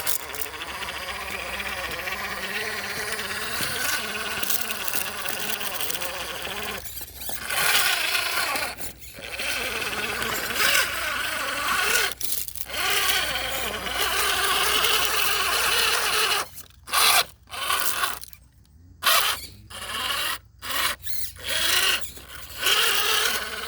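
MN82 RC crawler's brushless motor and geared drivetrain whining as it crawls over rock, steady at first, then in short stop-and-go throttle bursts with brief silences over the last third.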